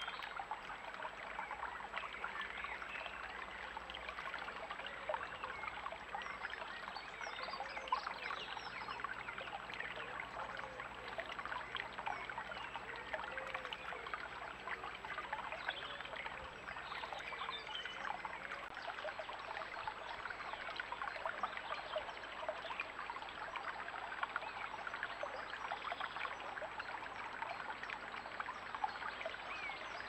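Shallow stream trickling steadily over a stony bed, a continuous rippling wash of running water.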